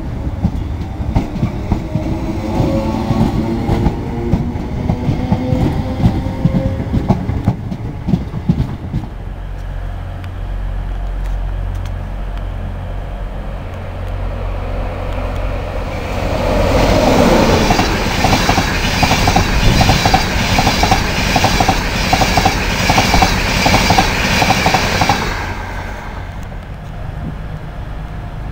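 Northern Rail Class 321 electric multiple unit pulling away, its traction motors whining up in pitch over the clatter of its wheels for the first nine seconds or so. After a lull of low rumble, a second train runs past about halfway through, with a fast, even clickety-clack of wheels over rail joints and a loud hiss that die away a few seconds before the end.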